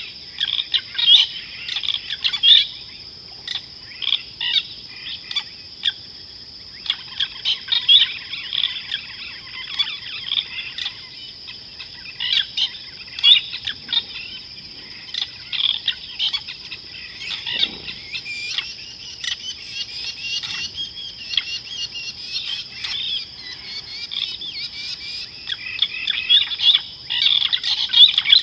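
Wild birds chirping and calling in many short, quick notes over a steady high-pitched insect drone.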